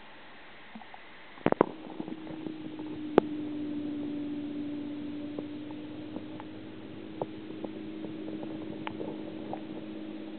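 A few knocks, then a steady low machine hum from the reef tank's equipment, such as a circulation or return pump, with light scattered clicks from the camera being handled.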